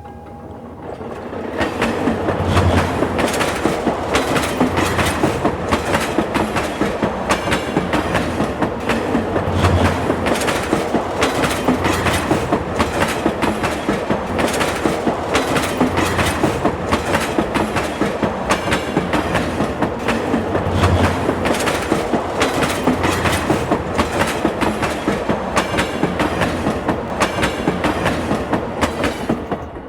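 Steady, rapid mechanical clattering made of many closely spaced clicks, starting about a second in.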